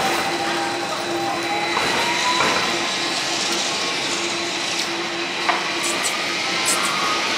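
Electric tram pulling away along street track, its motor whine rising slowly in pitch as it gathers speed, over steady street noise with a few faint clicks.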